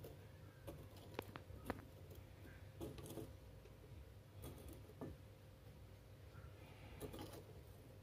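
Near silence with a few faint, light clicks and taps: metal tweezers and a small foil-lined crucible being handled and set down on a brick.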